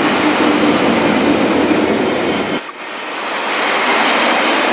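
Yellow track-maintenance train's heavy machine wagons and service cars rolling past close by: steady, loud wheel-on-rail rumble and rattle. About two and a half seconds in the deep rumble drops away abruptly and the noise dips briefly before building again.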